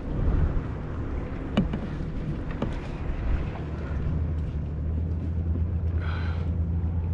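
A boat engine droning steadily, a little louder in the second half, with a few sharp knocks near the start.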